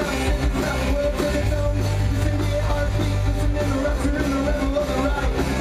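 Live rock band playing: electric guitars over a steady drum beat.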